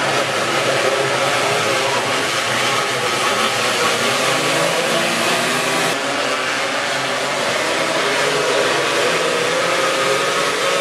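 A pack of winged sprint cars' V8 engines running together in a loud, steady drone, with the pitch wavering slightly as the cars come around.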